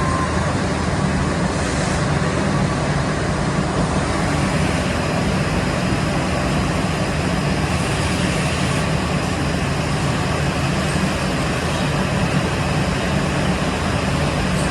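Liebherr LC 300 CNC gear hobbing machine running: a steady mechanical hum with an even hiss over it, unchanging throughout.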